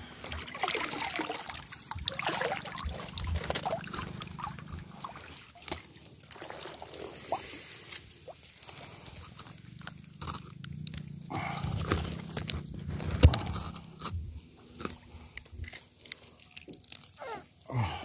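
A cloth scarecrow being handled in a rice paddy: clothes rustling and crinkling, rice stalks brushing, with scattered sharp clicks and scrapes.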